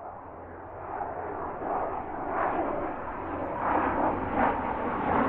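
Jet airliner engine noise, a rushing sound that grows louder over the first couple of seconds and then swells unevenly.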